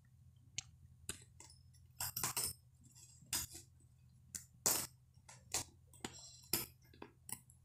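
Domestic cat gnawing at the corner of a bag: faint, irregular short crunches and rustles, about a dozen spread over several seconds.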